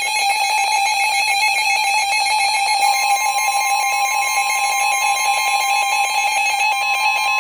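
Emergency alert attention tone on a broadcast severe thunderstorm warning: a loud, steady electronic alarm tone, joined by a second, slightly higher tone about three seconds in. It is the alert signal that comes before the spoken warning.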